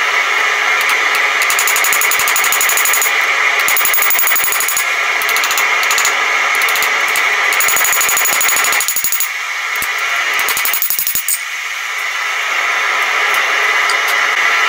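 Hand hammer striking a red-hot steel knife blade on an anvil in a quick, even rhythm, each blow a sharp metallic ring, over a steady loud hiss. The blows ease off briefly just past the middle, then resume.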